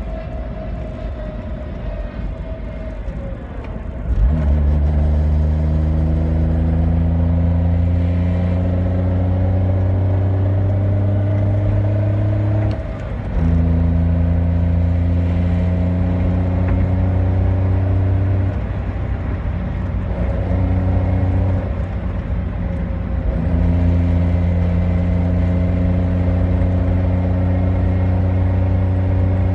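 Manual-transmission car under way, with a strong low drone that comes in about four seconds in, rises slowly in pitch and drops out briefly three times before resuming, as at gear changes. It is presented as an abnormal noise from the manual transmission.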